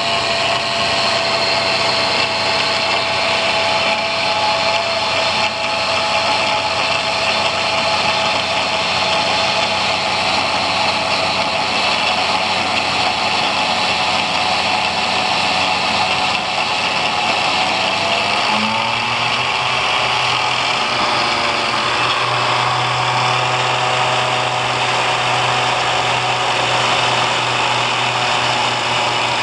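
Angle grinder mounted as a cut-off saw, running steadily with a high whine. About nineteen seconds in its sound changes and a low hum comes up.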